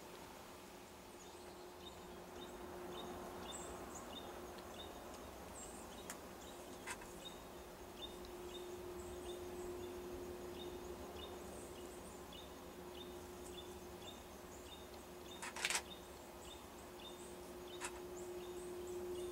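Quiet woodland ambience: a faint high chirp repeating about twice a second, over a steady low hum, with a few sharp clicks, the loudest about three-quarters of the way through.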